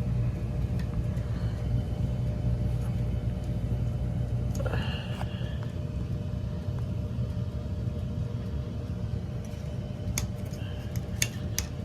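Steady low mechanical hum of running heating equipment that weakens about five seconds in, with a brief squeak at that point and a few sharp clicks near the end as the zone valve is handled.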